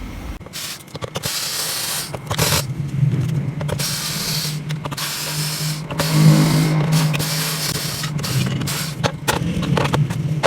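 Work on the back cover of an LED TV to get it open: a small motor whirs on and off, with repeated clicks and knocks of tool and plastic handling.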